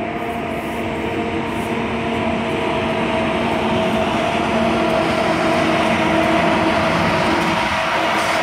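Class 18E electric locomotives approaching on the line: a steady electric hum with several held tones over running noise, growing louder as they near.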